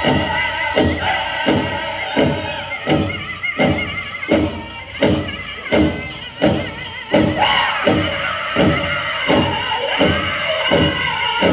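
Powwow drum group performing a men's chicken dance song. Several men strike a big drum together in a steady beat of about three beats every two seconds, while high, wavering voices sing in unison over it. A new high lead voice comes in about seven and a half seconds in.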